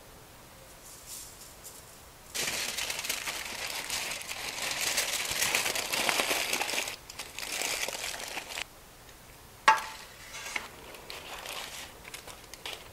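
Aluminium foil crumpled and scrunched by hand as it is gathered up around a garlic bulb, loud crinkling from about two seconds in until nearly nine seconds. A single sharp knock with a short ring follows about ten seconds in, then a little soft rustling.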